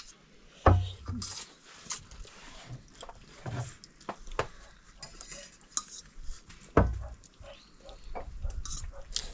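Spoons clinking and scraping against plates and bowls in irregular small clicks, with two louder knocks, about a second in and near seven seconds.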